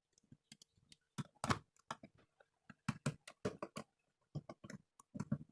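Irregular light clicks and taps, with a few louder knocks, as a cover is fitted over the spliced wires in an electrical box.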